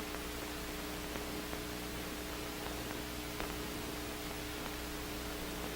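Steady hiss and low hum of an old film soundtrack, with a few faint ticks and no narration.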